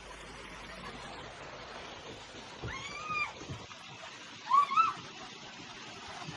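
A cat meowing: one drawn-out meow that rises and falls about three seconds in, then a shorter two-part meow about a second and a half later.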